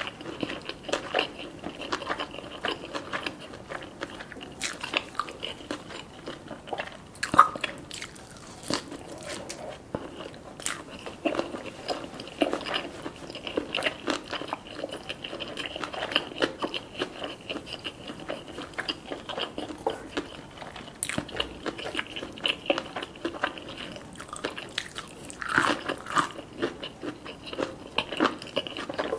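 Eating close to the microphone: a person biting and chewing crunchy food, with many small irregular crunches and mouth clicks.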